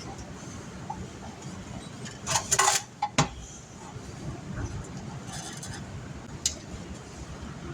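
Metal tools and parts clinking and clattering during work on a car's dashboard: a short run of clanks about two and a half seconds in, a sharp click just after, then a fainter rattle and a single light tick.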